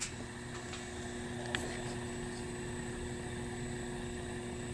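Steady electrical hum with a low drone underneath, from the Harbor Freight electric motor running with no load on the mill-lathe. A small click right at the start and a faint tick about a second and a half in.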